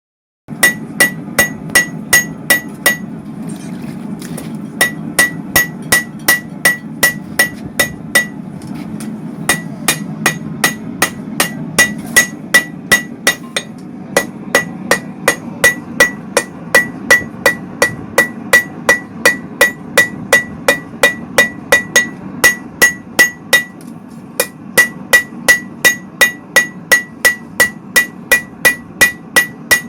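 Hammer striking hot 52100 ball-bearing steel on an anvil during the final forging heat of a kitchen knife blade, about three ringing blows a second, with a few short pauses. A steady low rumble runs underneath.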